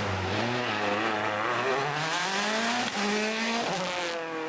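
Rally car engine revving hard, its pitch climbing and dropping again as it shifts through the gears. There are short breaks in the engine note about three seconds in and again near the end, after which it pulls steadily once more.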